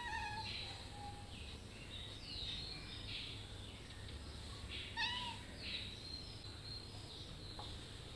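A cat giving short, soft meows asking for food: one right at the start and another about five seconds in, with high chirps in the background.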